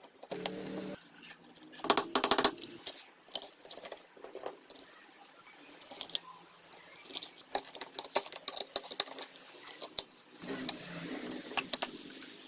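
Small metal parts and tools clinking and tapping against each other, with a dense cluster of ringing metallic clicks about two seconds in.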